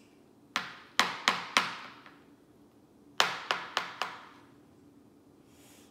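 A handheld plastic strawberry slicer clacking as it is worked. Two quick runs of four sharp clacks, about three a second, the second run starting a second and a half after the first ends.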